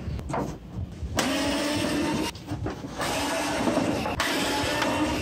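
Cordless electric screwdriver (Bosch Go) running in three bursts of about a second each, each with a steady motor whine, driving screws out of a plastic CRT monitor's back casing.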